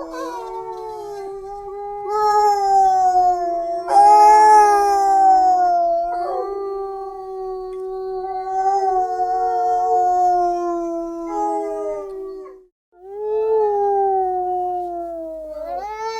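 Wolf pups howling together: long, overlapping, high-pitched howls that slowly sag in pitch. The howling breaks off briefly about three-quarters of the way through, then starts again.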